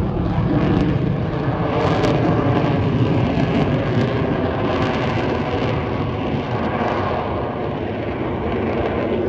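Fighter jet flying overhead: a steady rush of jet engine noise that slowly fades toward the end.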